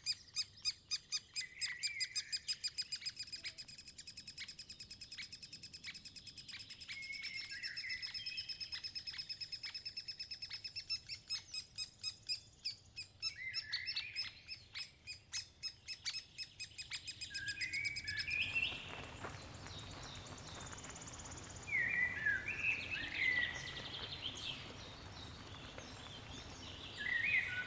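Birds calling: a fast, even string of high chirps, several a second, for most of the first 18 seconds. Then a softer stretch follows, with scattered short chirps over a faint hiss.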